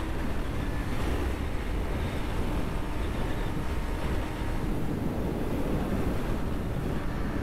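Steady wind rush over a motorcycle rider's microphone at riding speed, with the KTM Duke 250's engine running faintly underneath.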